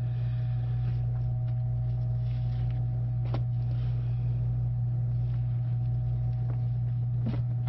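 A steady low machine hum with two faint steady higher tones above it that stop near the end. Under it, soft handling of wet cardboard and compost, with a sharp click about three seconds in.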